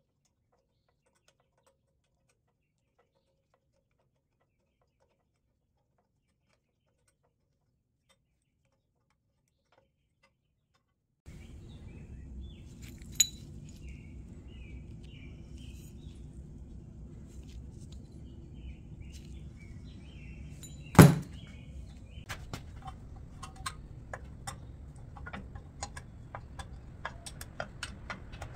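Dead silence for about eleven seconds, then a steady low hum with faint bird-like chirps, scattered light clicks and one sharp knock about ten seconds later, followed by a run of small ticks.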